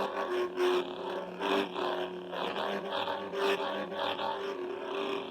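Lightsaber soundboard hum from a Plectolabs Crystal Focus X, a steady electronic drone played through the hilt's speaker, with repeated whooshing swells as the saber is swung: the board's smooth-swing effect.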